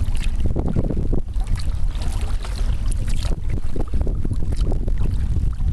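Wind buffeting the microphone with a heavy low rumble, over the splashing of kayak paddle strokes in the water.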